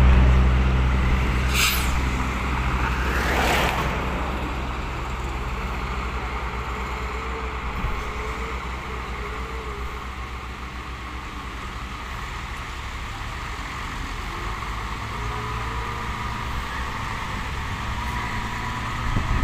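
A road vehicle rushes past close by at the start, with two more passing in the next few seconds. Underneath, the diesel engines of a Hino water tanker truck and a CAT 140G motor grader run steadily, and the truck grows louder as it draws near over the last few seconds.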